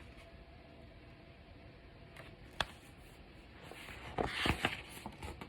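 Quiet room tone with soft handling noise: one sharp click about two and a half seconds in, then a short rustle around four seconds in.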